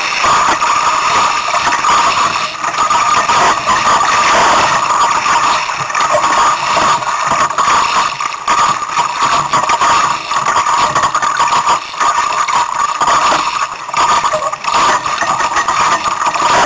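Strong storm wind buffeting the microphone: a loud, steady rushing noise that flutters in strength.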